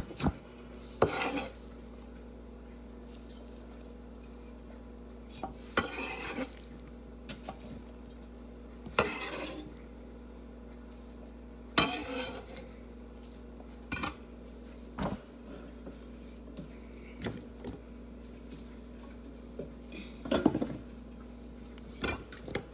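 Kitchen knife knocking and scraping on a wooden cutting board at irregular intervals: a dozen or so single sharp knocks and a few half-second scrapes with quiet gaps between them, over a faint steady hum.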